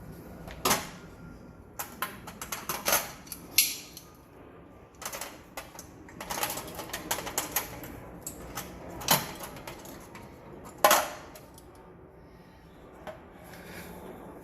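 Scattered metallic clicks and clinks of a screwdriver and screws against a sheet-metal water heater vent pipe, irregular sharp taps that die down near the end.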